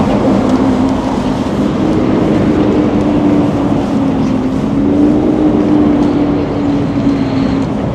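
City street traffic: a vehicle engine runs close by with a steady drone that wavers slightly in pitch, over a constant rush of traffic noise.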